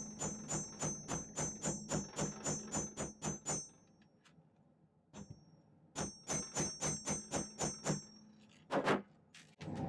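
Small chasing hammer tapping rapidly on silver wire, about four light blows a second, each with a high metallic ring. It is flattening and stiffening the hook of a fishhook clasp. The hammering comes in two runs split by a pause of about two seconds, then two single knocks near the end.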